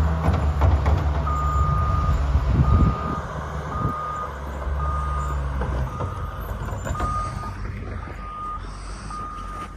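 Wheel loaders at work: a heavy diesel engine rumble with a reversing alarm beeping about once a second, starting about a second in. The engine rumble eases after about six seconds while the beeping carries on.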